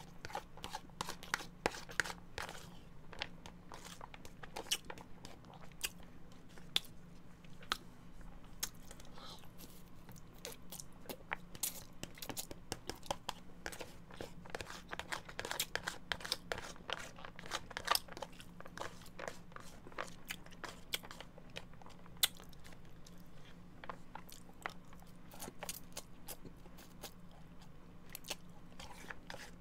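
Close-miked eating of spaghetti from a plastic takeout container: irregular sharp clicks and scrapes of a plastic fork against the container, with chewing.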